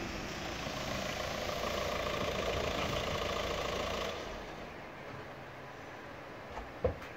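A motor vehicle's engine idling close by, which cuts off about four seconds in, leaving a quieter background hiss; a single sharp click comes near the end.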